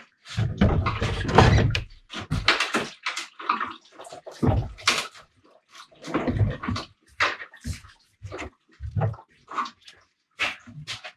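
Old radiator from a 2011 Jeep Grand Cherokee being worked up and out of the engine bay: irregular scraping, rustling and knocks as its tanks and fins rub and bump against the surrounding hoses and shroud, with the loudest bumps about a second or two in.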